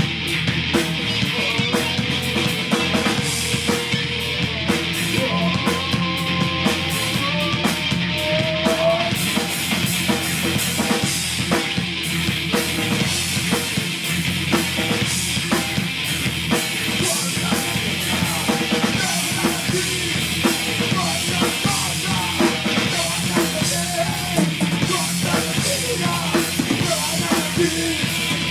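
Alternative rock band playing a song on drum kit and electric bass, with a steady beat and no break.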